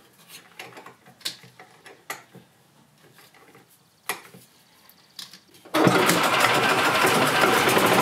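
A few faint clicks and taps of hand tools on the battery terminals, then almost six seconds in the 2008 Yamaha Drive gas golf cart's engine fires right up and runs steadily and loudly.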